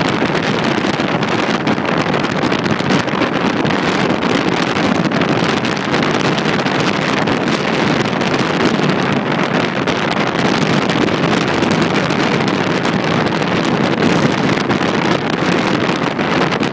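Wind rushing over the microphone of a moving motorbike, with small motorbike engines running steadily at cruising speed underneath.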